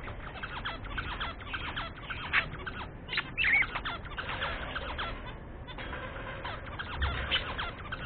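Budgerigars chattering: a fast, continuous run of short chirps, clicks and warbles, with a short rising warble about three and a half seconds in.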